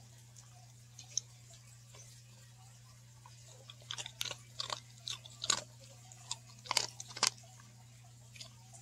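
Dog chewing crumbs of a frosted dog cookie, with a quick run of crisp crunches from about four seconds in to about seven.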